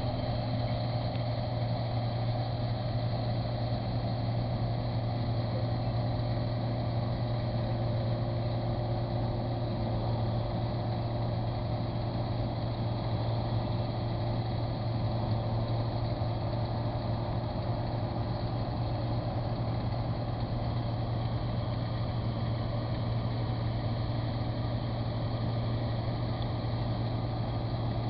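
Claas Mercator 75 combine harvester running steadily while harvesting grain, its diesel engine and threshing machinery making an even, unbroken drone with a strong low hum.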